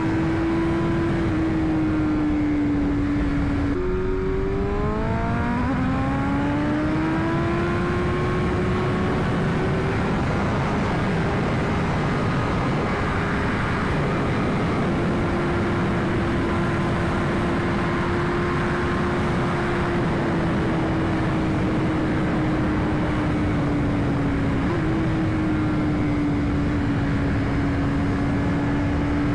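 2021 BMW S1000RR's inline-four engine pulling steadily under way, over a constant rush of wind and road noise. About four seconds in the pitch drops with a gear change, then climbs for several seconds as the bike accelerates, and after that holds mostly steady with small rises and dips.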